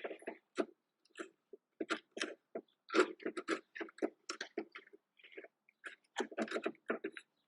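A hand tool scraping and paring wood in short, irregular strokes, a few a second, while a half-lap joint in the gate frame is trimmed smooth.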